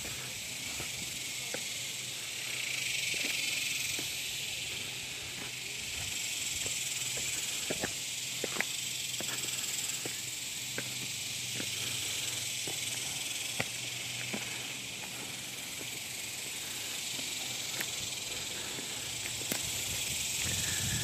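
Steady high-pitched chorus of insects in the brush, with scattered light clicks and crunches of footsteps on a dirt and gravel trail.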